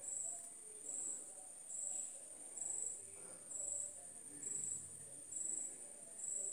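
Crickets chirping: short high chirps about once a second over a continuous high-pitched trill.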